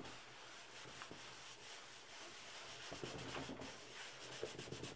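Paper towel rubbing and scrubbing as a gloved hand wipes up after ink priming, a faint continuous scratchy rustle with small clicks and scrapes in the second half.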